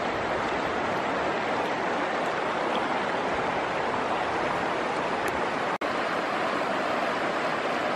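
Steady rushing of a fast-flowing, muddy river, broken by a momentary dropout about six seconds in.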